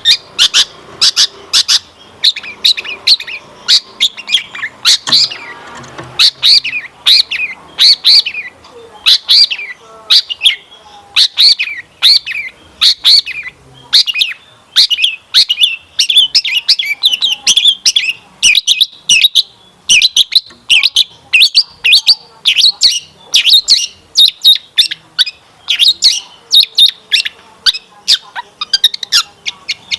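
Long-tailed shrike singing a fast, unbroken string of short, sharp chirps and scratchy notes, several a second. The song is packed with mimicked notes of other birds.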